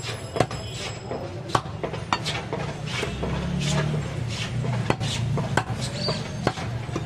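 Butcher's knife cutting mutton on a wooden log chopping block, the blade knocking against the wood in sharp, irregular taps about once a second, over a steady low background hum.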